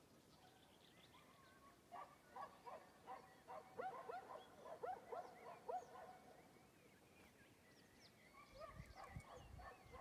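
A dog barking in the distance, faint. It gives a quick run of short barks about three a second from about two seconds in, then pauses and starts again near the end, when a low rumble comes in as well.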